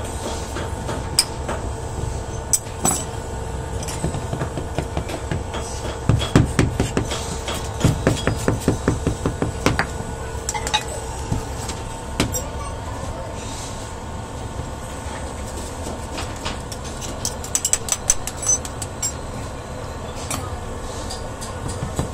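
Metal clinks and knocks as moulding sand is packed and tapped around metal casting flasks, in bursts of rapid taps, over a steady machine hum.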